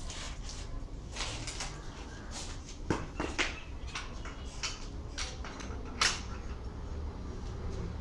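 Scattered clicks and knocks as a tender coconut is handled and set into the holder of a hand-lever coconut piercing and cutting machine, with two sharper knocks about three seconds in and the loudest one about six seconds in.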